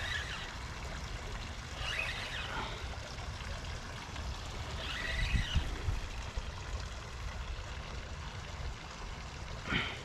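Water splashing and trickling as a hooked small catfish is reeled in toward the bank, with brief louder splashes about two and five seconds in, over a steady low rumble.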